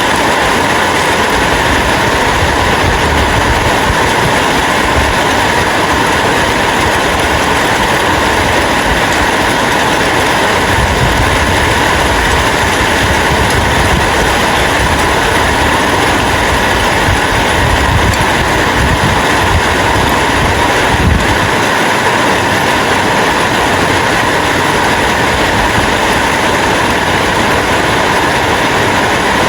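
Steady rain falling: an even hiss with an uneven low rumble underneath.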